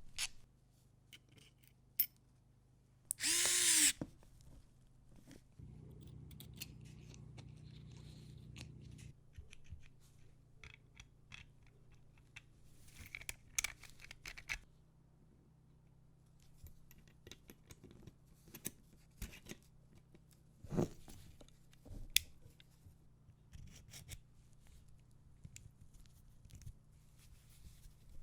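Scattered small metal clicks and knocks from handling the Nagant revolver's parts, with a brief loud burst of noise about three seconds in and a low hum for a few seconds after it.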